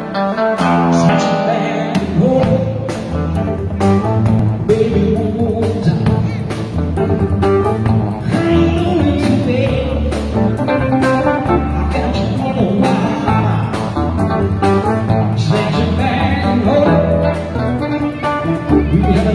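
Live blues band playing: hollow-body electric guitar, electric bass, keyboard and drum kit, with a steady beat.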